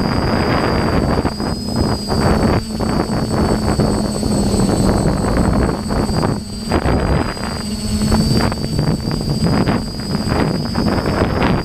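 DJI FPV drone's motors and propellers running with a high, steady whine that wavers slightly in pitch over a lower hum, under gusting wind rush on the drone's onboard microphone.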